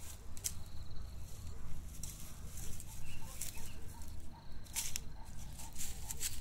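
Dry grass and fallen leaves rustling and crackling as a tabby kitten pounces and steps through a pile of dry mulch, in several brief crackles.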